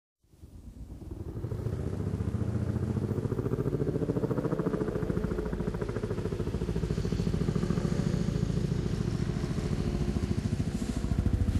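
Low, rapidly pulsing engine-like rumble that fades in over the first couple of seconds and then runs steadily. It is a sound-effect intro to a metal song.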